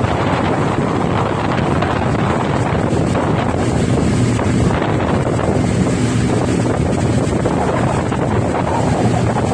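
Steady, loud rush of propeller aircraft engine noise mixed with wind on the microphone, with a low even hum underneath and a faint high whine.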